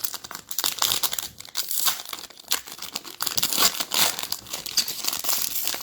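Wrapper of an NBA Hoops trading-card retail pack crinkling and tearing as it is ripped open, a dense irregular crackle throughout.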